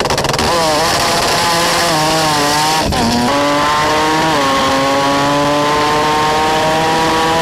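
Drag car's engine at full throttle down the strip, rising in pitch through each gear and dropping at several quick upshifts.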